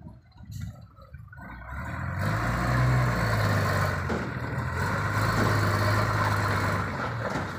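Hino truck's diesel engine pulling the truck and its container load forward slowly. It is quiet at first; about a second and a half in the engine picks up and runs loud and steady with a deep hum, then eases slightly near the end.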